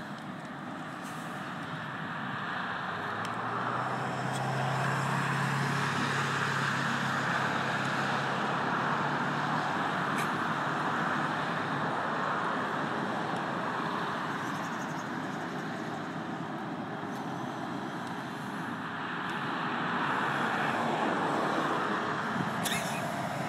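Road traffic on a highway: vehicles pass one after another, the tyre and engine noise swelling and fading. The first pass, a few seconds in, carries a steady low engine drone, and a second vehicle, a heavy truck, goes by near the end.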